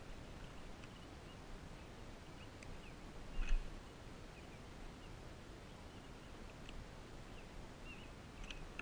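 Quiet lakeside ambience: a steady low background rumble with scattered faint bird chirps, and one brief knock about three and a half seconds in.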